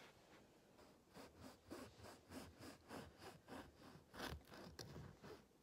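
Serrated bread knife sawing back and forth through a soft, fresh-baked loaf: faint rasping strokes, about three a second, a little louder near the end.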